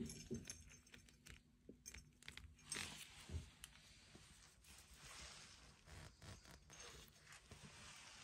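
Faint metallic clinks and rattles of a brake-line flaring tool bar with wing-nut clamps being handled, with a few louder clinks near the start and around three seconds in.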